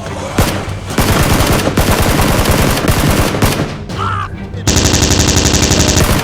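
Automatic gunfire sound effects: dense rapid shots, settling near the end into an even, fast machine-gun burst.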